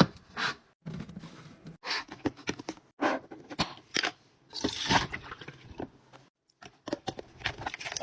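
Kitchen items being handled and set down: a run of sharp clicks, taps and scrapes, with a short rustle about halfway through. The sound is cut together in short pieces.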